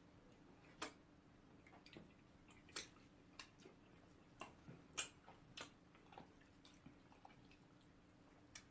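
Faint, irregular wet clicks and smacks of someone eating messily with an open mouth: lip smacking and chewing on soup and starch, about a dozen sharp smacks spread unevenly over a few seconds.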